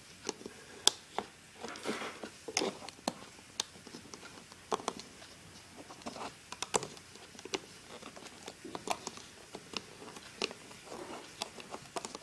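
Small irregular clicks and taps of rubber bands and fingers working a plastic band loom, with bands snapping against the clear plastic pegs, about one or two clicks a second.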